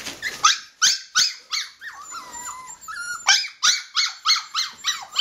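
Shetland Sheepdog puppies yelping and whining at being left alone in their pen: a rapid string of short high-pitched cries, several puppies at once, starting about half a second in.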